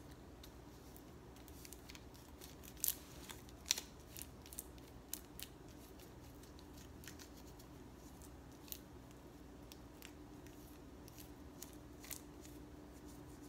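Faint scratchy clicks and rustles of fingers rubbing a wax strip pressed onto armpit skin, loudest about three to four seconds in, over a faint steady hum.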